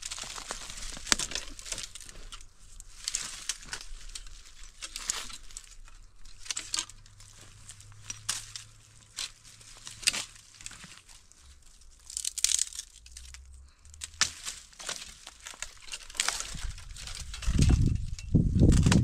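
Dry leaves and twigs crackling and snapping irregularly as tree branches are gripped, pulled and climbed through. A louder low rumble comes in near the end.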